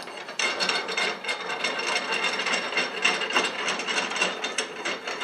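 New acme-threaded screw on a half-inch steel rod being turned by hand and fed into a South Bend 13-inch lathe's saddle: a steady metallic scraping and rubbing with quick light clicks as the threads run in and the screw works toward meshing with the gear inside.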